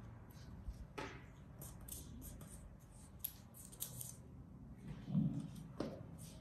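Paper dollar bill crinkling and rustling as fingers fold and crease it: a scattering of short, crisp crackles and clicks, with a soft low thump about five seconds in.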